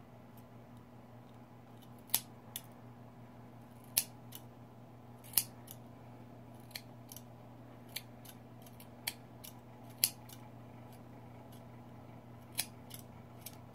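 Small scissors snipping through a doll's synthetic hair: single sharp snips at irregular intervals, about one every second.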